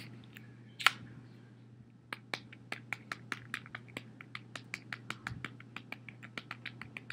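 Buttons of a slide-out QWERTY cell phone keypad clicking in quick succession, about five presses a second, as a number is dialled. One louder single click comes about a second in.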